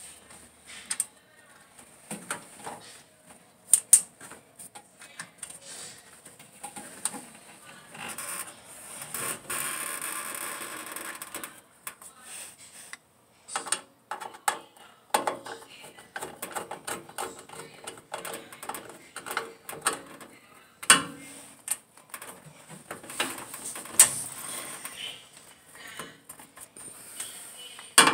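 Clothes-dryer repair work: scattered clicks, knocks and clatter of hand tools and metal dryer parts being handled, with a few seconds of steady mechanical noise about eight seconds in.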